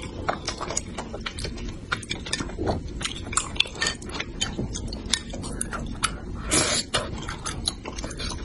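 Close-miked mouth sounds of a person eating spicy braised fish: chewing and lip-smacking with many quick wet clicks, and one longer slurp about two-thirds of the way through.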